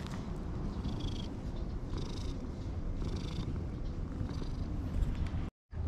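Domestic cat purring steadily while being stroked on the head, a low, rapid rumble of contentment. Faint high chirps come in about once a second in the background, and the sound cuts out briefly near the end.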